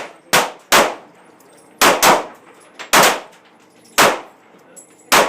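Handgun shots on a shooting range: about seven sharp reports in five seconds, unevenly spaced, some in quick pairs, each with a short ringing tail.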